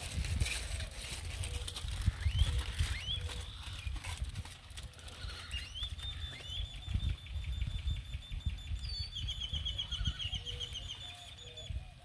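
A bird singing: a few rising whistled notes, then a long, fast trill about halfway in. Underneath is a low rumble like wind on the microphone.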